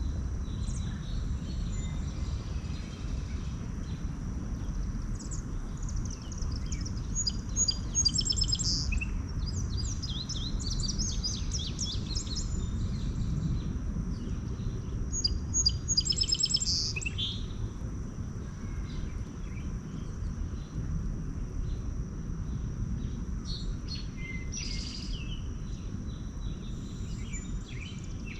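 Wild songbirds chirping and singing in quick bursts, busiest from about five to seventeen seconds in and again near the end, over a steady low rumble and a constant thin high tone.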